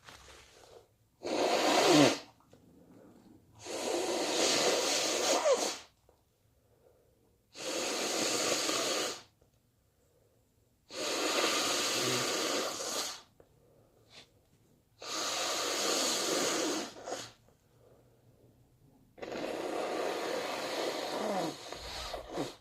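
A person with a head cold blowing their nose: six long, hard blows of about two seconds each, a couple of seconds apart.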